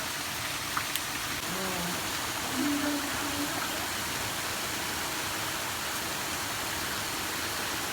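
Steady hiss of falling rain, even in level throughout, with faint voices briefly in the background.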